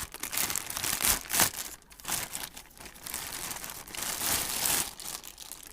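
Crinkling and rustling of packaging being handled, in irregular bursts.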